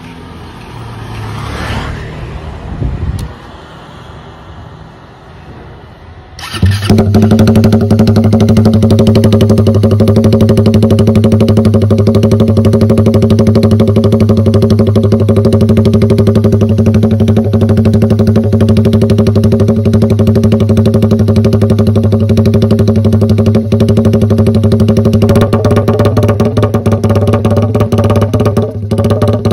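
Suzuki Raider 150 Fi's single-cylinder four-stroke engine, breathing through an AUN 'fat bulate' open exhaust pipe, starts about six and a half seconds in and then runs at a steady, very loud idle.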